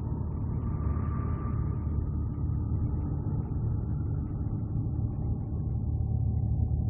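Low, steady rumbling space drone, presented as Voyager spacecraft data of Saturn's rings turned into sound. A faint higher tone swells and fades about a second in.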